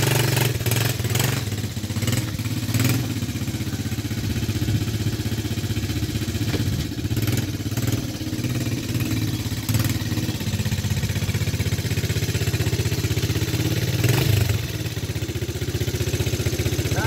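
A small quad bike (ATV) engine running as it is ridden: it revs up briefly in the first few seconds, runs more quietly through the middle, revs again a little before the end, then settles to a steady idle.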